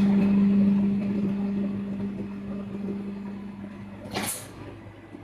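3D fence panel bending machine running with a steady hum that slowly fades, then a short hiss about four seconds in as the hum stops.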